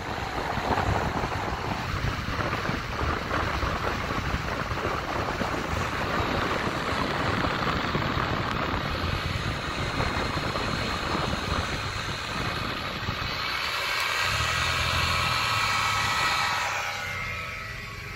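Steady road and wind noise of a car driving on a paved road. From about three-quarters of the way in, the buzz of a paramotor's engine and propeller comes through more clearly as it flies close alongside.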